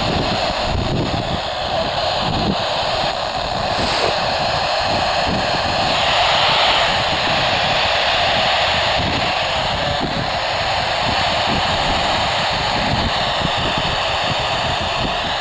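Handheld FM radio's speaker hissing with steady static while tuned to an amateur radio satellite's downlink, the hiss growing brighter about six seconds in.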